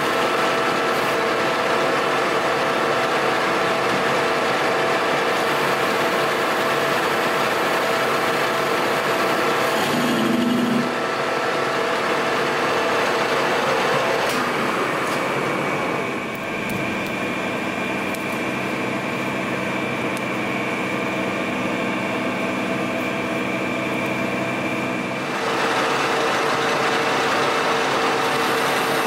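Metal lathe running and turning a bright mild steel bar, a steady machine whine made of several tones under the noise of the cut. The note shifts a few times, around a third, half and five-sixths of the way through.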